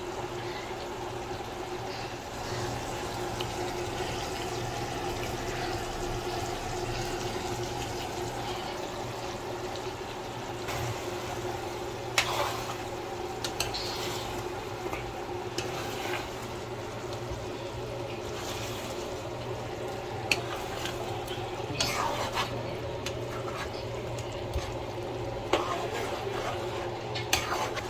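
Chicken drumsticks with onion and tomato sizzling in a frying pan, turned over with a spatula that scrapes and knocks against the pan now and then. A steady low hum runs underneath.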